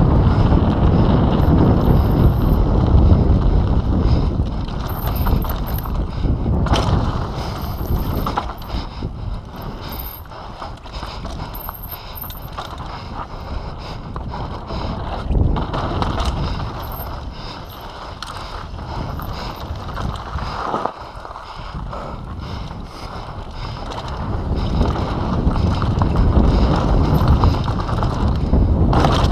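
Mountain bike ridden fast downhill on dirt trail: wind rush on the camera microphone and tyre noise, with the chain and frame clattering over bumps. The rush is loudest at the start and again near the end, and lower in the middle.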